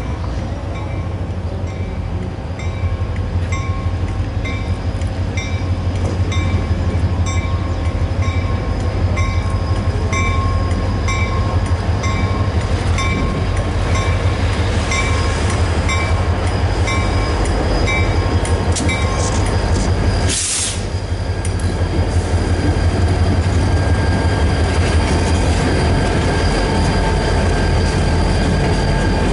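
Diesel locomotives, led by Southern SD40 3170 with its EMD 16-cylinder two-stroke engine, approaching and passing at low speed with a steady deep engine rumble and wheels on the rails. A bell rings about once a second until about two-thirds of the way through, and a short hiss comes just after it stops.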